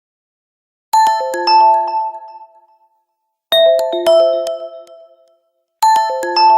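Phone ringtone: a short bell-like chime melody of a few notes stepping down in pitch, played three times, about two and a half seconds apart.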